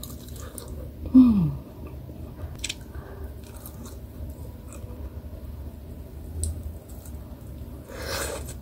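A person biting and chewing a piece of fish cake pulled off a bamboo skewer, with small wet clicks of the mouth. About a second in, a short hum from the voice falls in pitch. Near the end there is a breathy rush.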